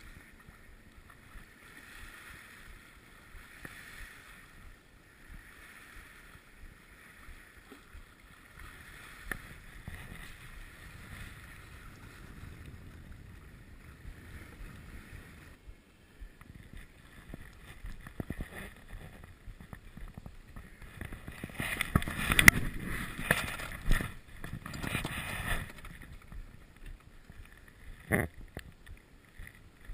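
Water washing along the hull of a sailboat under way, swelling and easing about every two seconds, with wind on the microphone. About two-thirds of the way through comes a louder stretch of knocks and rustling, and there is a single sharp knock near the end.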